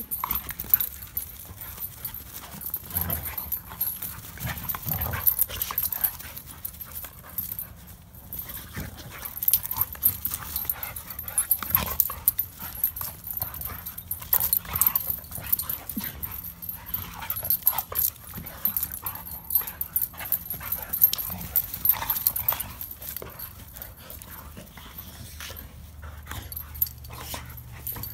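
Two pit bulls play-fighting, making irregular short dog noises mixed with scuffling, in a steady run of brief sounds throughout.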